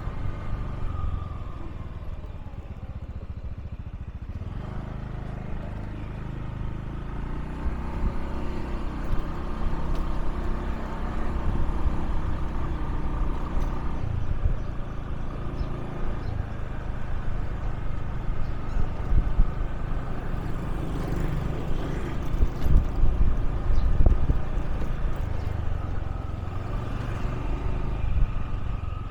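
Motorbike engine running on the move, its pitch stepping up and down as speed changes.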